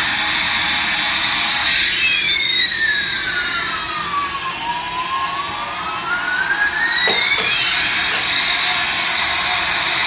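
Battery-powered toy airliner and toy car running, the airliner giving off an electronic jet-engine sound: a steady whooshing hiss with a tone that glides up and down once in the middle. A few sharp clicks about seven seconds in.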